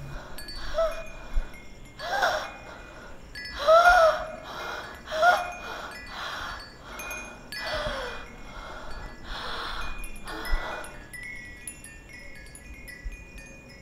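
A woman gasping and wheezing for breath with short strained moans, in the throes of a heart attack brought on by fright. Wind-chime tinkling plays over it and carries on alone after the gasps stop, about eleven seconds in.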